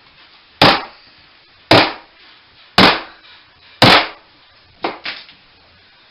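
A hammer striking a bathroom wall during demolition: four heavy blows about a second apart, then two lighter ones in quick succession.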